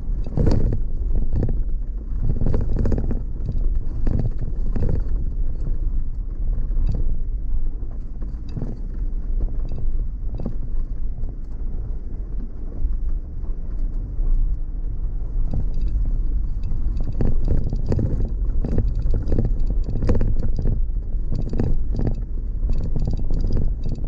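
Vehicle driving on a rough off-road dirt track: a steady low rumble with frequent irregular knocks and rattles as it goes over bumps.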